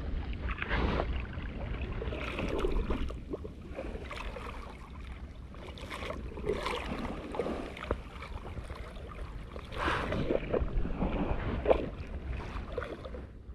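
Small sea waves sloshing and lapping in irregular surges, with wind buffeting the microphone.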